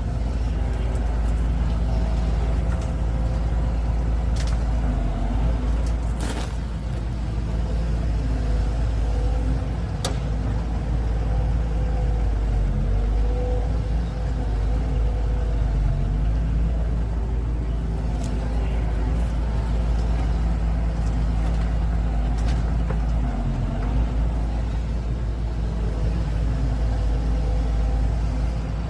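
Excavator and other heavy vehicle engines running steadily, with a couple of short sharp knocks.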